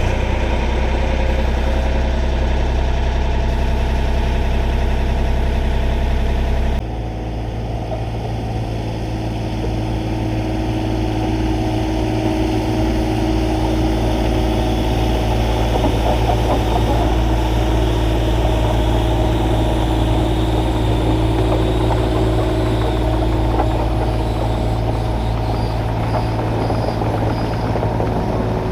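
Diesel engine of a heavy machine running steadily just after catching from a crank start. About seven seconds in, the sound changes abruptly to a slightly quieter, different-pitched drone and keeps running.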